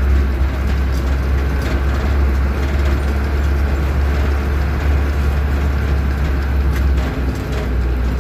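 Military truck engine running, heard from inside the cab as a steady, loud low drone.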